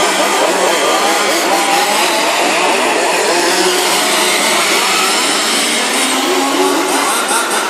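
Several 1:5 scale petrol radio-controlled Formula 1 cars racing, their small two-stroke engines buzzing together, each rising and falling in pitch as they accelerate and back off through the corners.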